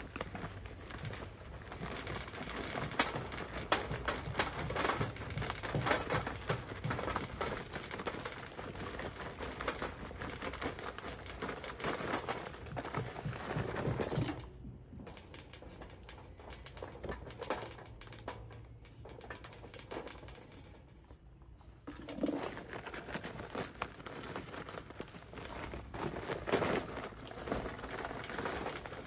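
Paper charcoal bag and paper crinkling and rustling while charcoal is loaded into a chimney starter, with scattered clicks and clatters, in two busy stretches with a quieter spell between.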